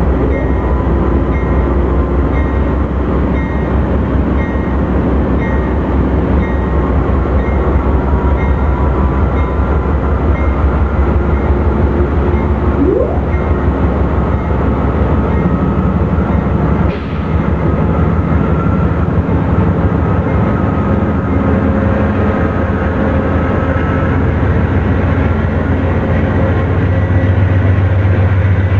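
Amtrak GE Genesis diesel locomotives pulling slowly past with their engines running loud and steady, and the engine note rising near the end as they throttle up.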